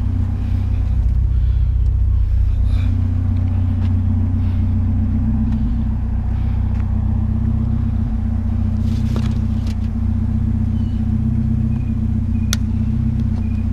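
Truck engine running with a steady low rumble, and a sharp click near the end.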